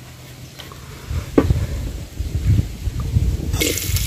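Wind buffets the microphone with a low rumble, and there are a few light knocks. Near the end, sliced onions hit the hot oil in an aluminium saucepan and start sizzling suddenly and loudly.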